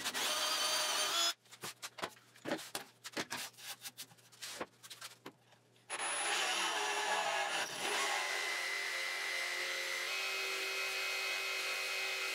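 A drill boring a hole into plywood for about a second, followed by a few seconds of scattered light knocks and clicks. From about six seconds in, a RIDGID jigsaw runs steadily, cutting through the plywood.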